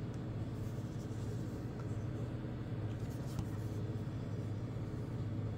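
A steady low hum under a faint hiss, with light rubbing and a soft click about three and a half seconds in as a smartphone is handled.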